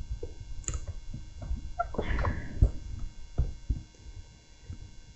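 Hands working plastic wiring plugs and a plastic display panel housing on a mobility scooter's handlebar: scattered small clicks and taps, a brief rustle about two seconds in, and a sharper knock just after it.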